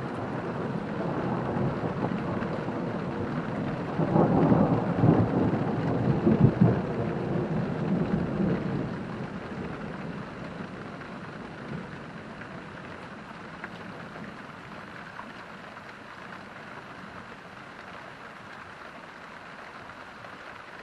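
A long rumble of thunder that builds, peaks with crackling between about four and nine seconds in, then rolls away, leaving steady rain.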